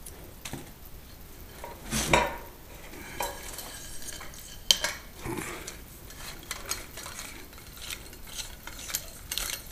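Metal floor-lamp pole sections being handled and screwed together: irregular small clinks and scrapes of metal tube, with a louder knock about two seconds in and a sharp click near five seconds.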